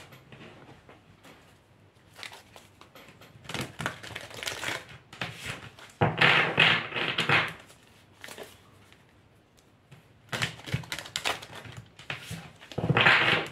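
A deck of cards shuffled by hand, in four bursts of quick papery riffling and flicking, the loudest about six seconds in and near the end.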